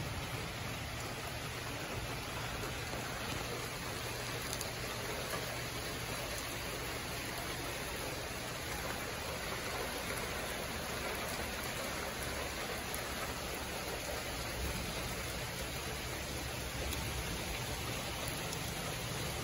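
Steady, even rushing hiss of stormy weather outdoors, with no thunder or other distinct sounds.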